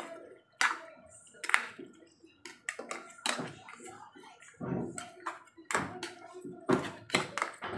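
A metal ladle scraping and knocking against a wok as chicken is stirred in coconut milk: irregular sharp clacks and scrapes, several of them loud.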